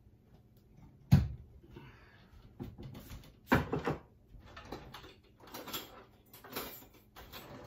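Kitchen clatter: a sharp knock about a second in, then a string of clunks and scrapes as a ceramic bowl is set down on the counter and dishes are handled.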